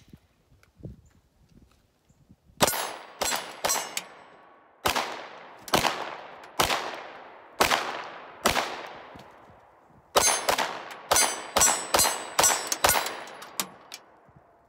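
Glock 19 Gen 4 9 mm pistol firing: three quick shots, then five spaced about a second apart, then a fast string of about a dozen. Each shot is followed by a long echo that fades over about a second.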